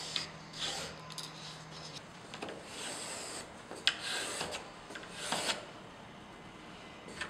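Pencil scratching across plasterboard along the edge of a PVC chamfer bead, scribing a cut line in several short strokes.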